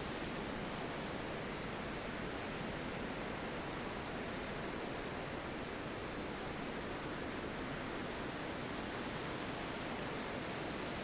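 Wind blowing steadily through forest trees, an even, unbroken rush of noise.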